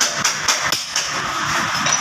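Hammer blows ringing on steel held on an anvil as a garden trowel blank is hand-forged, about three strikes over a steady background hiss.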